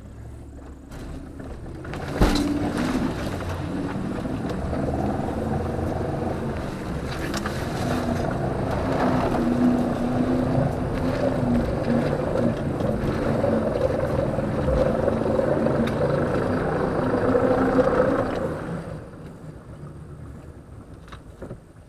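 Jeep Grand Cherokee's engine revving hard under load, pushing through a mud hole. There is a thump about two seconds in as the revving starts, and the engine drops back about three seconds before the end as the SUV bogs down just short of getting through.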